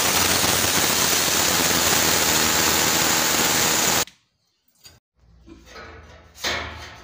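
Electric hammer drill boring into a masonry wall through a steel shelf bracket's fixing hole, running at a steady loud pitch, then stopping sharply about four seconds in.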